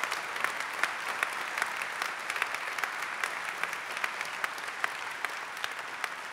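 Audience applauding: many people clapping steadily, with single sharp claps standing out, the applause easing off at the end.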